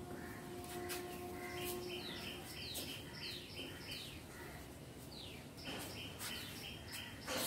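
Small birds chirping: rapid series of short, high, falling chirps, over a faint steady hum that stops about two seconds in, with a few light clicks.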